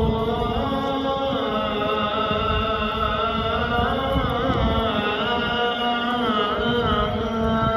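A voice chanting a slow, ornamented melody in long held notes, over a steady lower note.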